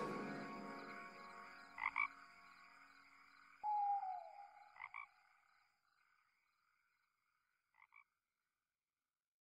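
Background music fading out, then near silence broken by three faint, short double calls about three seconds apart and one brief falling tone.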